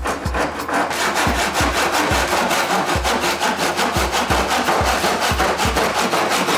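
A small fine-toothed hand saw cutting through a block of scrap wood with quick back-and-forth rasping strokes.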